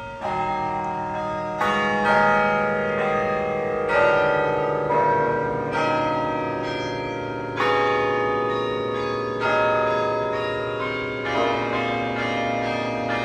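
Tower carillon bells playing a slow tune. A new strike of several bells together comes roughly every two seconds, each ringing on and overlapping the next.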